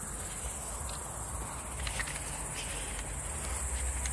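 Crickets chirring steadily and high-pitched in long grass, over a low steady rumble.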